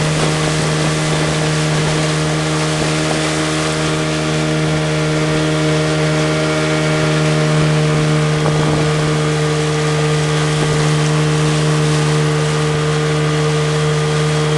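A small boat's engine running steadily at constant speed: a loud, even, low hum with several steady tones above it that do not change pitch.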